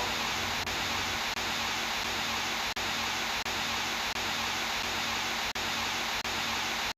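Steady white-noise static hiss, like a TV channel off the air after sign-off. It drops out for an instant several times and cuts off suddenly near the end.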